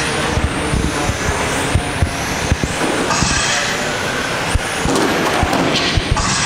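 Steady background noise of an RC racing venue, with irregular sharp knocks and a few short bursts of hiss.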